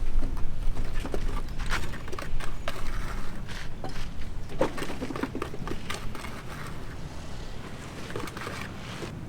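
Construction-site background: a steady low rumble with scattered light taps and clicks, fading a little toward the end.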